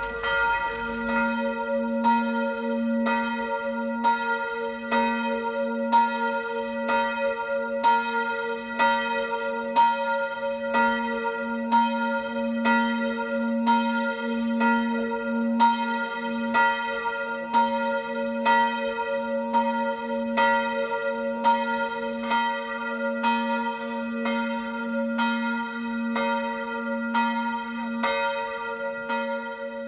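Cemetery chapel bell tolling for a burial, struck steadily about three times every two seconds, with a lower ringing tone that joins about a second in.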